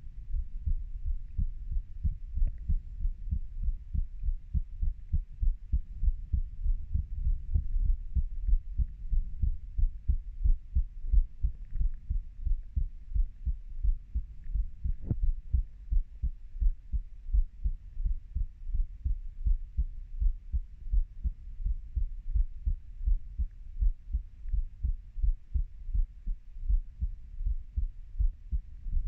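Human heartbeat: a steady, even run of deep beats, with a faint hiss behind.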